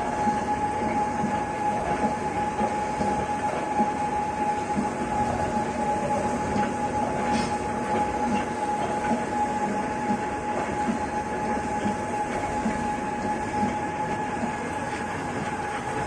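Gear shaper running, its cutter stroking in and out as it cuts the internal spline teeth of a built-up cast-iron backhoe planetary ring gear. It makes a steady machine hum with a constant whine and a faint regular beat.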